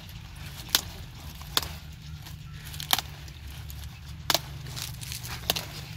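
Crisp snapping of cauliflower leaf stalks as they are broken off a freshly picked head by hand: five sharp cracks at uneven intervals, over a steady low rumble.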